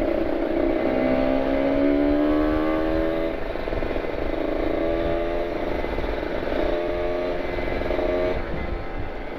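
Kawasaki Ninja RR 150's two-stroke single-cylinder engine through an R9 carbon aftermarket exhaust, accelerating on the throttle. The pitch climbs over the first three seconds, climbs again from about four to eight seconds, then falls as the throttle closes near the end.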